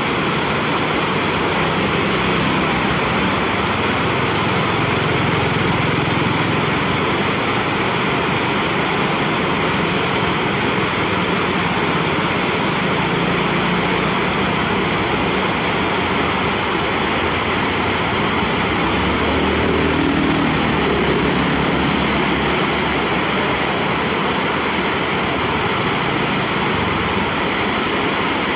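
Steady, even rushing of river water pouring over a dam weir.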